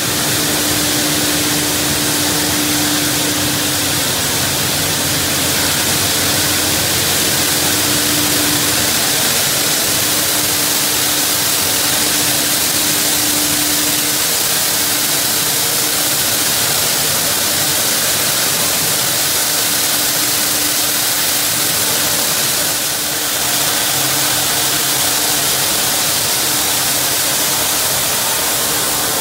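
Rigid PE/PP plastic washing line running: a steady, noisy machinery hum with a tone that is strong at first and fades about halfway through.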